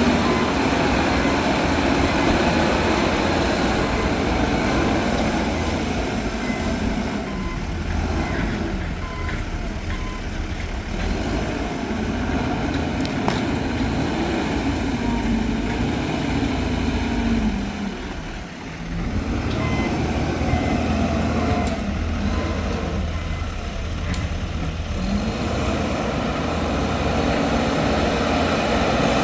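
Diesel heavy equipment at work, engines running steadily and revving up and down several times. Short reversing-alarm beeps come in now and then.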